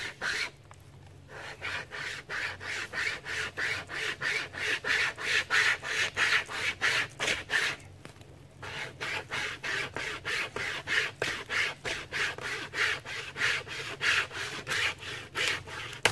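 Survival-kit wire saw cutting through a fallen tree's limb in quick back-and-forth strokes, about three a second. The sawing breaks off briefly twice, about a second in and about eight seconds in.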